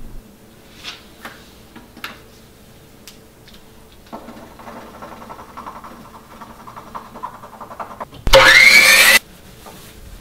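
Pen scribbling quickly on paper at a table, after a few faint clicks. Near the end, a sudden very loud sound lasting about a second, rising in pitch, cuts in and stops abruptly.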